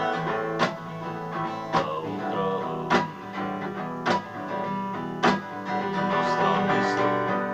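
Instrumental music: a strummed guitar playing chords, with a sharp accented stroke a little over once a second.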